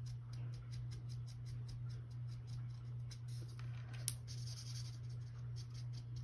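Tri-blend brush marker tip scratching over paper in many quick, short strokes while colouring in tiny paper arrows, over a steady low hum. One sharper tick comes about four seconds in.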